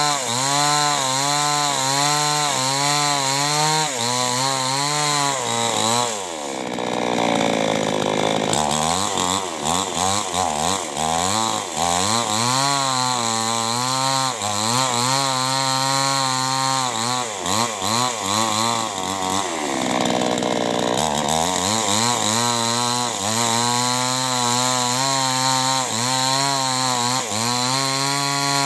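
Two-stroke chainsaw cutting into wood under load, its engine pitch wavering up and down about once a second as it bogs and recovers. Twice, about six and twenty seconds in, it rises sharply in pitch as it revs freely.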